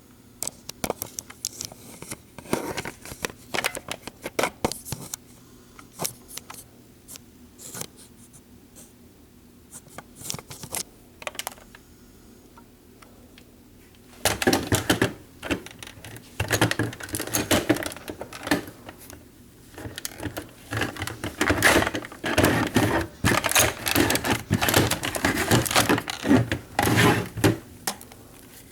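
Close handling noises: scattered clicks and taps, then from about halfway a denser, louder run of scraping, rustling and sharp clicks.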